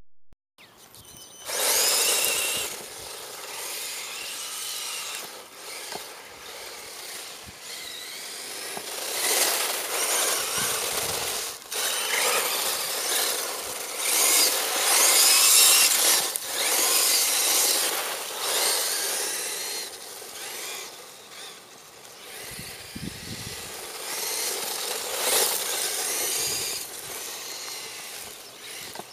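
Traxxas 1/16-scale Mini E-Revo electric RC truck driving hard on loose dirt: a high electric-motor whine that rises and falls in pitch with the throttle, over the hiss of tyres scrabbling and spraying dirt. It starts about a second and a half in and surges louder and eases off as the truck accelerates and turns.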